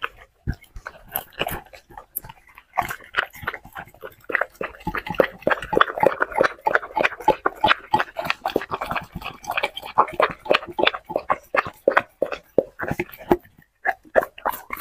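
A dog crunching and chewing crisp lettuce leaves, a quick, dense run of wet crunches with a brief pause near the end.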